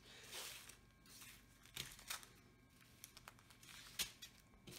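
Small plastic zip-lock bags of diamond-painting drills crinkling faintly as they are picked up and set down, with a sharper tap about four seconds in.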